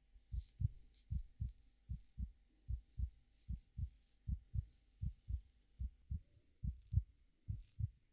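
Heartbeat thumping in paired beats, about 75 a minute, under soft irregular rustling of hair being played with close to the microphone.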